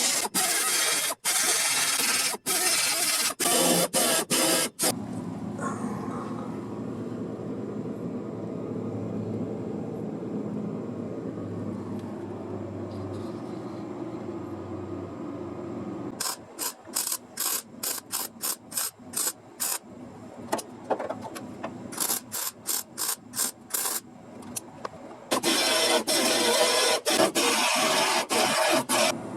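Hand-tool work on a sheet-metal repair panel: stretches of rasping, with a run of sharp strokes at about two a second in the middle and a quieter steady hum between.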